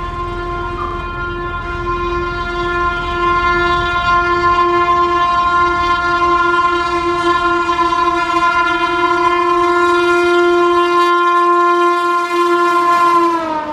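Indian Railways locomotive horn sounding one long continuous blast as the Humsafar Express approaches, growing louder. Near the end its pitch drops suddenly as the locomotive passes.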